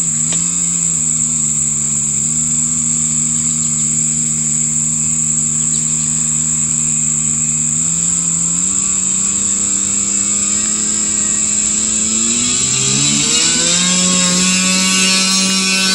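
Model airplane's top-mounted engine and propeller running at a steady idle, stepping up slightly about halfway through, then throttled up sharply near the end to a higher, steady full-power pitch as the plane begins its takeoff roll. A steady high whine runs beneath it.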